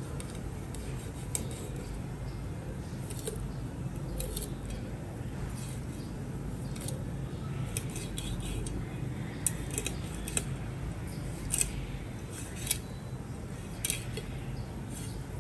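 Cleaver slicing raw fish fillet on a plastic cutting board: irregular light clicks and scrapes as the blade cuts through and touches the board, coming more often in the second half, over a steady low hum.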